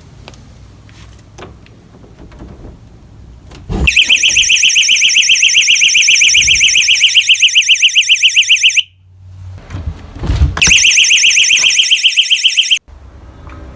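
A wedge door-stopper alarm's 120-decibel siren, triggered by the door pushing against its spring trigger. It gives a very loud, high, rapidly warbling shriek. The siren sounds twice, each time after a thump, about four seconds in and again about ten seconds in, and each time it cuts off suddenly.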